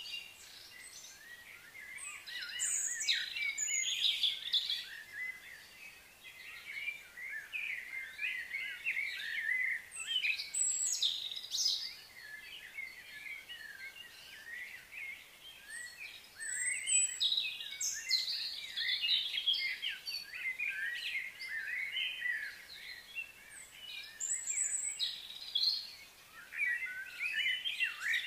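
Several birds chirping and singing, in bunches of quick calls with short quieter spells between.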